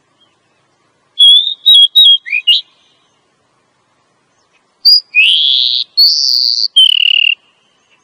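Female Oriental magpie-robin calling: a quick run of short whistled notes about a second in, then, after a pause, a longer phrase of drawn-out whistles, one rising, one held high and the last lower. It is the female's call, used to lure males.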